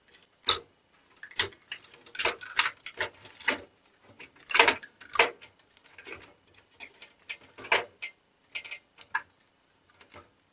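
Irregular clicks and knocks of computer parts being handled and pulled off a PC motherboard during dismantling, the loudest about halfway through.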